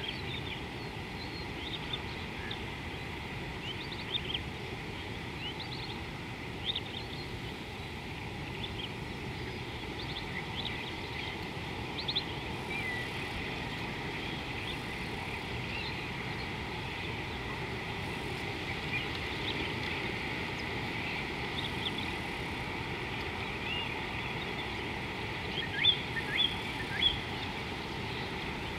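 Steady rushing of river water under many short bird chirps scattered throughout, with a few louder chirps near the end.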